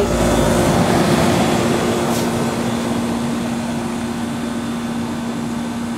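Trane XB10 3-ton central air conditioner's outdoor unit running: condenser fan air noise over a steady hum from its Climatuff reciprocating compressor. The unit is very noisy, its condenser coil badly clogged with dirt, which the owner thinks makes it louder.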